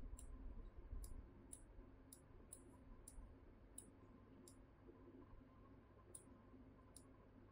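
Faint computer mouse left-clicks, about ten single clicks at an uneven pace, over quiet room tone.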